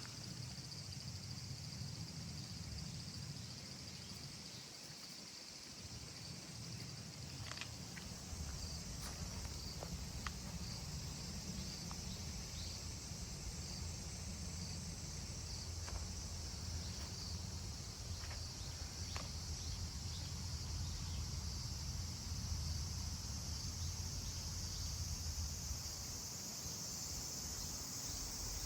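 Steady chorus of insects, a continuous high-pitched buzz, over a low rumble, with a few faint clicks along the way.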